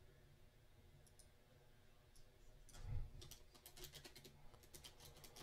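Faint typing on a computer keyboard: after a soft thump about halfway through, a quick, uneven run of light key clicks.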